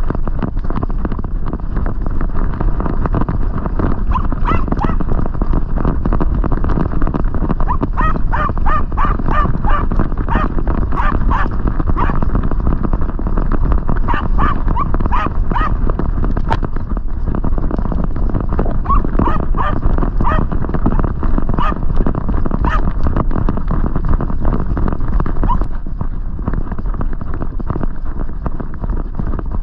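German hunting terrier barking in runs of quick, high yaps from about four seconds in until near the end, the baying of a terrier hunting wild boar. Under it, a constant rumble of the dog running through dry leaf litter with the camera strapped to its back.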